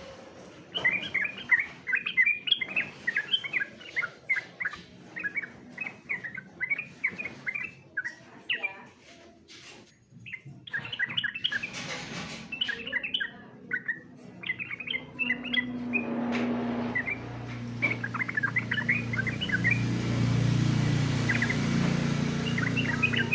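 Yellow-vented bulbul (trucukan) singing: quick runs of short bubbly chirps with a brief pause near the middle. A low hum comes up behind it in the second half.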